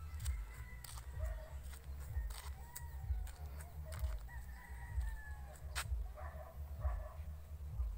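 A rooster crowing, its call curving up and down in pitch around the middle, over a loud, uneven low rumble like wind on the microphone, with a few scattered clicks.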